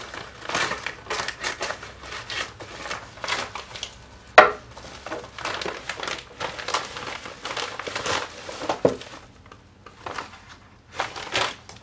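Plastic postal packaging crinkling and rustling as it is slit with a knife, torn open and handled while items are pulled out, with one sudden loud crackle about four seconds in.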